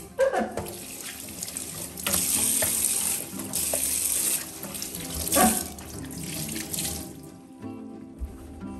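Kitchen tap running into a stainless steel sink, the stream splashing over hands and a sponge being rinsed, then shut off about seven seconds in.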